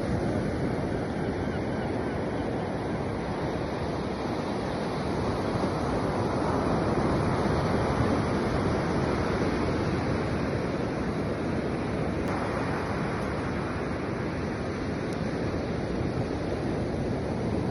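Sea surf washing steadily onto the beach, with wind rushing over the microphone.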